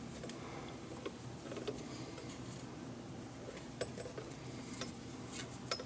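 Faint, scattered small clicks and rustling of hands fitting a leather glove lace onto a metal lacing needle.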